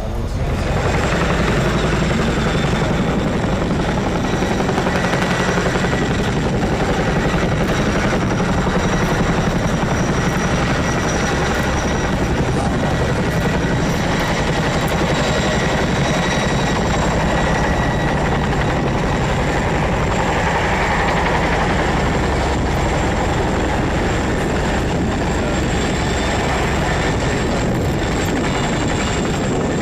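Boeing Chinook tandem-rotor helicopter running under power, its two rotors beating and its twin turbines whining steadily at a high pitch.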